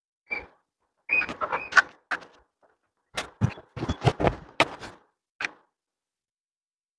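Clicks, knocks and short rattles of the plastic and stainless-steel parts of a clothes drying stand as a wing is fitted onto its frame by hand. The sounds come in two clusters of sharp clicks, and the second holds a few duller knocks.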